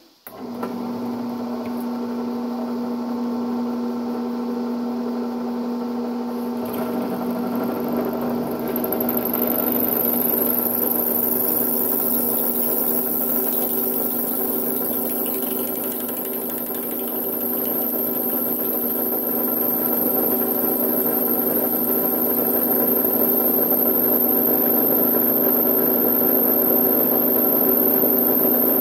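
Bench drill press motor starting up and running steadily, its 1/8-inch carbide bit drilling into a steel single action revolver hammer to drill out the broken cam. The sound grows louder and coarser about seven seconds in, and a thin high whine joins it about nine seconds in.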